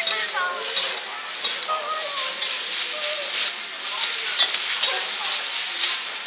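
Food frying on a hot griddle: a steady sizzle with frequent sharp clicks and scrapes, as of metal spatulas working against the hot plate.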